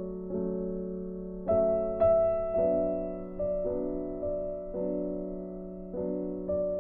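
Slow, gentle solo piano background music, soft chords struck about once a second with a louder pair of notes about one and a half to two seconds in.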